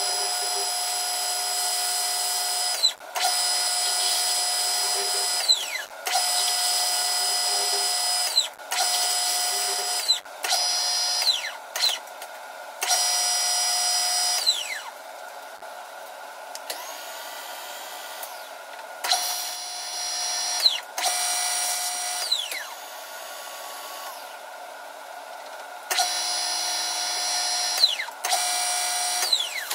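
A handheld power drill runs in short repeated bursts, about ten in all. Each burst is a steady high whine lasting a second or three, and each ends with a falling whine as the motor spins down after the trigger is let go.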